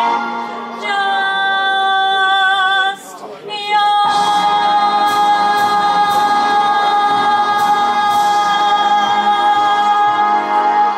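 A woman singing a 1940s-style song into a microphone, amplified through a PA, with vibrato on held notes. A short break comes about three seconds in, then she holds one long note almost to the end.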